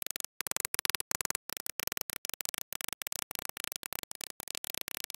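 Choppy, stuttering background music: a rapid run of short bursts, several a second, with hard silent gaps between them.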